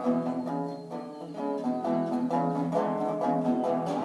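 Tricone resonator guitar being picked: a quick run of plucked notes over held bass notes.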